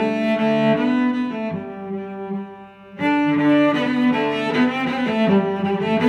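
Background music of slow, sustained bowed strings, low and cello-like. It fades down midway and comes back in suddenly about halfway through.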